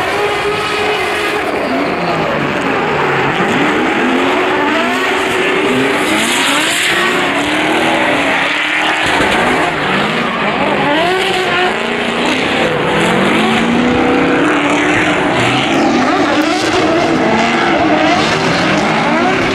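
Drift cars' engines revving up and falling back again and again, several at once, with tyre squeal as the cars slide around the track.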